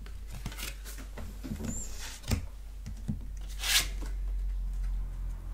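Oracle cards being handled by hand: a few soft clicks and taps, a sharper tap a little past two seconds in, and a brief swish of a card sliding about three and a half seconds in.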